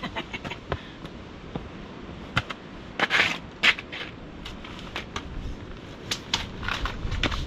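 Footsteps crunching and scuffing on crusted snow and ice over rock, a run of irregular crunches with the loudest cluster about three seconds in.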